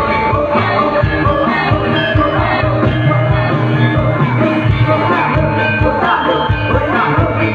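Loud live Javanese gamelan music accompanying a jaran kepang dance, with a steady drum beat, ringing metallophone tones and singing.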